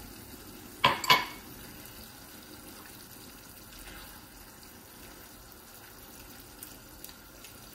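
Salt-cod, leek and tomato stew simmering in a nonstick frying pan with a soft steady sizzle while a silicone spatula stirs and scrapes through it. Two sharp knocks about a second in are the loudest sounds, with a few faint clicks near the end.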